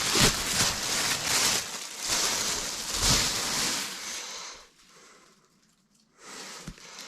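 Packaging rustling and crinkling as an item is pulled out and handled, dying away to near silence about two-thirds of the way through.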